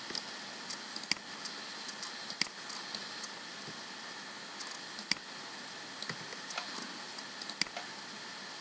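Sparse keystrokes on a computer keyboard: a few sharp clicks, several seconds apart, among fainter ticks over a steady hiss.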